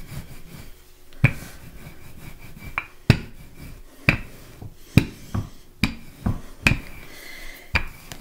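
Wooden rolling pin rolling out pie-crust dough on a floured counter, pushed back and forth, with a sharp click roughly once a second over a soft rubbing sound.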